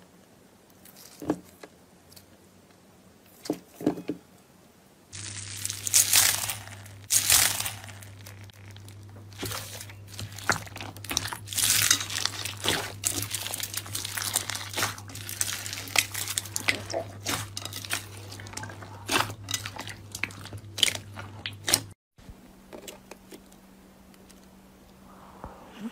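Slime being squeezed, pressed and poked by hand, giving crunchy crackles and sharp popping clicks. The clicks are sparse at first, come thick and fast from about five seconds in, and thin out again near the end.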